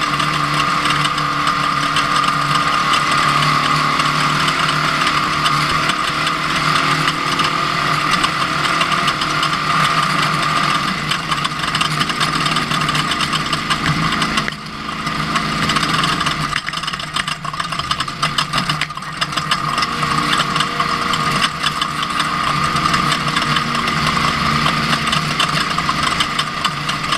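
Ford Ranger off-road race truck's engine running under way with constant rattling and clattering of the truck. The engine dips briefly about halfway, then picks up again.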